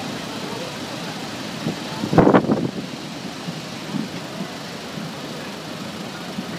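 Storm seawater overtopping a harbour quay and pouring in a steady rush over its edge into the marina basin, with a brief, much louder burst about two seconds in.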